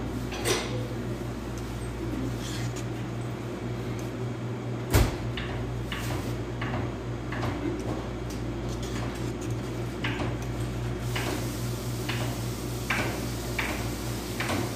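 Squeeze-handle scoop and spatula clicking and knocking as cupcake batter is portioned into paper liners on a metal tray, with a sharp knock about five seconds in and a quicker run of clicks near the end, over a steady low hum.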